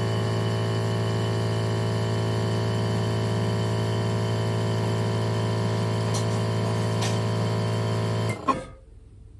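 A steady, unchanging drone that cuts off abruptly about eight and a half seconds in, leaving a faint click and then quiet room tone.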